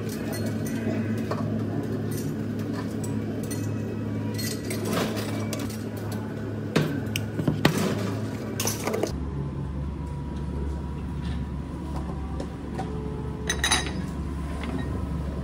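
Steady hum of cafe kitchen equipment, with a few light clinks and knocks of a stainless steel bowl and dishes being handled on the counter.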